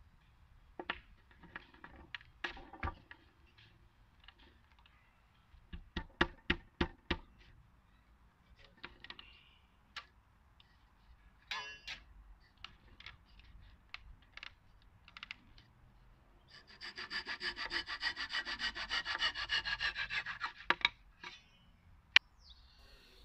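Hand saw cutting a kerf down into an oak dowel, quick rhythmic strokes for about four seconds in the second half. Before that come scattered wooden knocks and taps, with a quick run of about six sharp knocks about a quarter of the way in.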